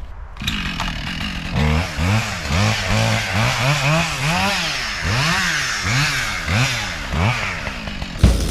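Husqvarna 572XP two-stroke chainsaw running under load while cutting into the trunk, its engine speed rising and falling over and over, about every half second.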